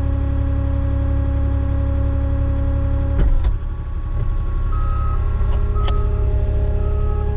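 Avant 860i compact loader's diesel engine running steadily under hydraulic load as the boom is brought in, with a knock about three seconds in after which the engine note shifts. From about five seconds in, the loader's reverse alarm sounds short beeps about once a second as it backs up.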